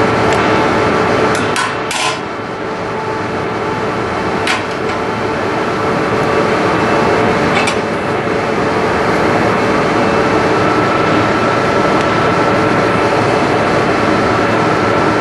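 Steady loud background noise throughout, with a few sharp clicks of scissors and a plastic flashlight being handled, a cluster of them in the first two seconds and single ones later.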